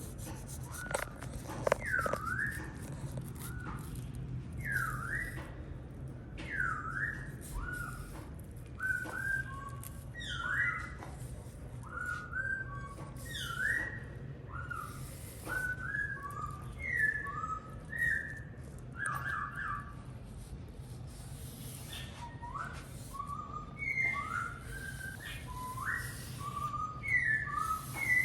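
A long series of short whistled notes, many sweeping down and back up, repeating every second or so, over a steady low hum.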